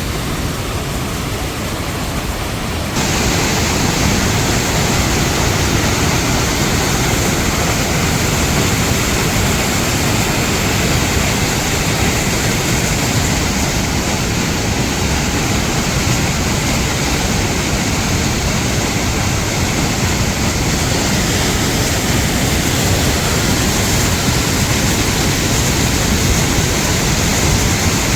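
Rhine Falls, a very large waterfall, giving a steady roar of heavy falling water that steps up in loudness about three seconds in.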